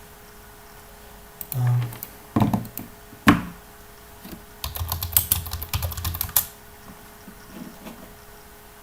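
Computer keyboard typing: a few separate keystrokes with one sharp louder stroke about three seconds in, then a quick run of keystrokes that stops about six seconds in.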